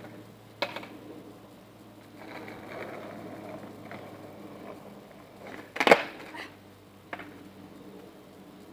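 Skateboard wheels rolling on asphalt, then a pop shove-it attempt: the tail snaps and the board clatters down hard about six seconds in, with a lighter clack about a second later. A single sharp knock comes about half a second in.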